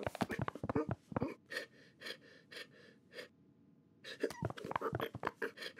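Cartoon cat's voice, done by a person: a quick run of short gasps and effortful grunts as the cat struggles with a collar over its head. They break off briefly past the middle, then start again in rapid bursts near the end.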